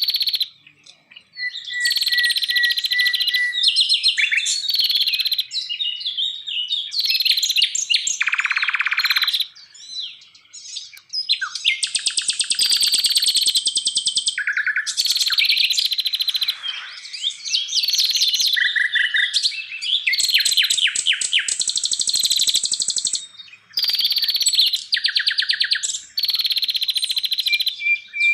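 Wild songbird song: a dense, varied run of high whistled phrases, fast trills and rapidly repeated notes. It pauses briefly about a second in, around ten seconds in and again near the end.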